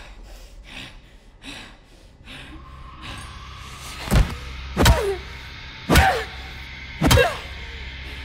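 Four heavy thuds, the first about halfway through and the rest roughly a second apart, each followed by a short falling tone, over a low steady drone.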